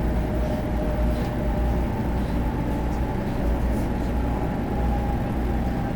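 Cabin noise inside a 500 Series Shinkansen car while the train is running: a steady low rumble with a faint, steady whine above it.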